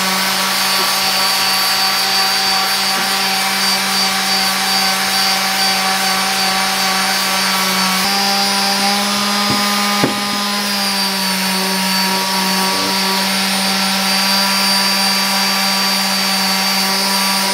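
Electric orbital sander running steadily with a constant hum, sanding a steel sledgehammer head with about 80-grit paper to take out scratches. Its tone shifts slightly about halfway through, and there is a small knock about ten seconds in.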